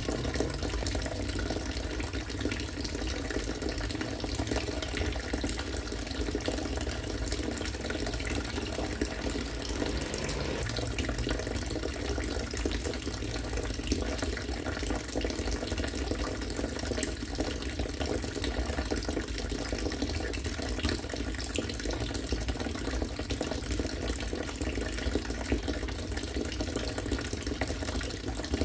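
Harvested rainwater pouring steadily from a pipe into water, a continuous splashing and bubbling stream.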